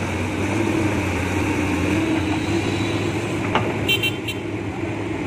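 Hydraulic excavator's diesel engine running steadily under load as it dumps soil into a dump truck and swings. A short high double beep sounds about four seconds in.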